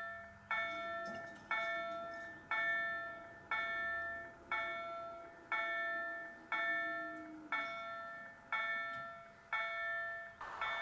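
Railroad level-crossing warning bell ringing, one strike about every second, each ring dying away before the next.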